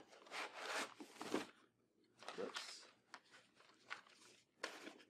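Handling of packaging: white foam packing end pieces scraping as they are pulled off a cardboard box, then cardboard flaps and paper rustling, in several short bursts.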